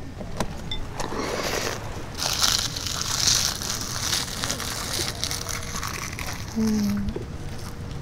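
Close crunching and chewing of crisp dried seaweed wrapped around pickled seafood, in crackly bursts that are loudest in the first half.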